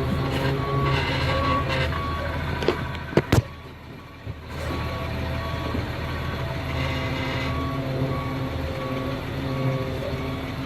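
Bus's 7.2-litre Caterpillar C7 inline-six diesel running under way, heard from inside the cab, with a short high beep repeating steadily throughout. A couple of sharp knocks a little over three seconds in, after which the engine briefly drops away before picking up again.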